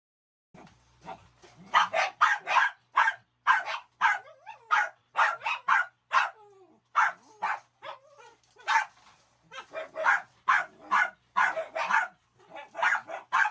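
Dogs barking excitedly in a rapid run of short barks, about two a second, with high whining yelps mixed in through the middle.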